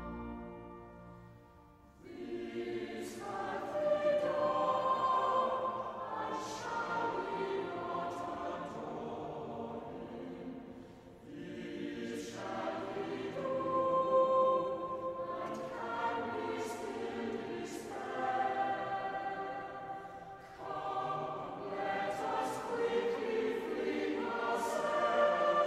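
A held chord fades out. About two seconds in, a choir starts singing a verse of a hymn in long phrases with short breaks between them.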